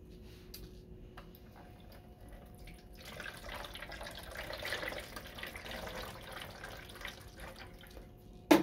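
Sterile water poured from a bottle through a small funnel into a bubble CPAP water chamber, a steady pour from about three seconds in to near the end. A single sharp click comes just before the end.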